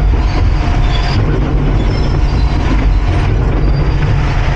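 Cat 349 excavator's big diesel engine running, a loud, steady low rumble.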